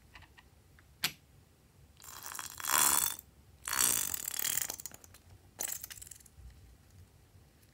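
Thick pink filling squeezed out through the cut neck of a rubber balloon onto slime, squelching and spluttering with trapped air in three bursts, the first two over a second long. A single sharp click comes about a second in.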